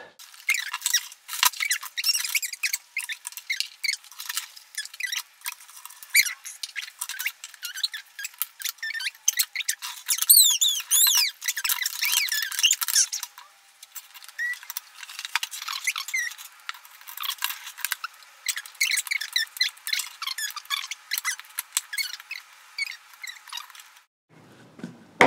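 Plastic toy track pieces being handled and snapped together: many quick clicks and rattles, with high squeaky gliding chirps about ten to thirteen seconds in. The whole sound is thin and high-pitched, with no low end.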